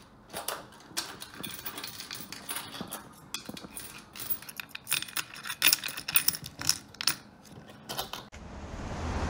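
Coins clinking and clicking as quarters are picked out of a clear plastic piggy bank and set down in stacks on a tabletop: a quick, irregular run of sharp metallic clicks. Near the end it gives way to steady street traffic noise.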